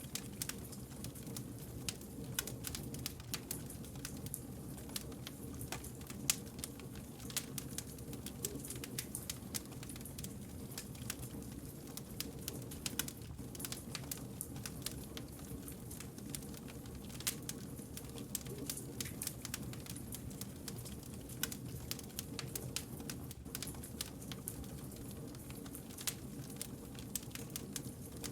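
Burning firewood crackling with many small, irregular pops over a steady low rumble of flames, one pop louder about six seconds in.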